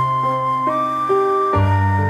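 Background music: a soft, slow melody on a flute-like instrument over sustained low bass notes.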